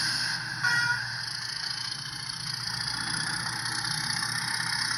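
Traintech sound capsule's small speaker playing a diesel locomotive's idling sound, a steady low rumble with hiss: its resting noise, played once the capsule senses that the train has stopped. A brief higher tone sounds just under a second in.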